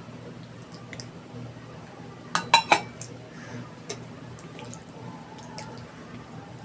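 Tableware clinking during a meal: a quick run of three or four sharp clinks about two and a half seconds in, with faint scattered clicks around it.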